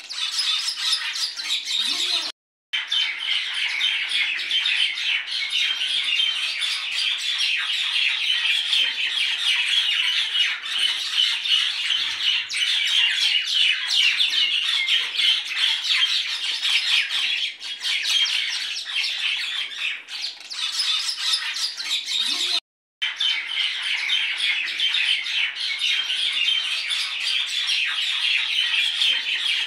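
A dense, continuous chorus of small birds chirping and squawking. It drops out abruptly for a moment twice, a couple of seconds in and again later on.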